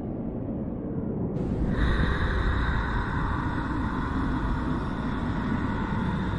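Dark, low rumbling horror drone. About a second and a half in it swells, and a steady high ringing tone joins it.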